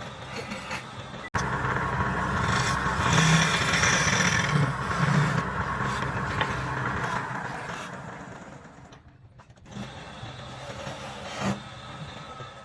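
Wood lathe running with a turning tool scraping on the spinning wood. The sound starts abruptly about a second in, is loudest in the first few seconds, then dies away after about eight seconds.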